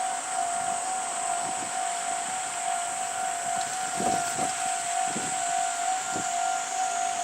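Japanese level crossing's warning alarm sounding, a steady tone held throughout, over an even rushing hiss, with a few dull low thuds in the middle.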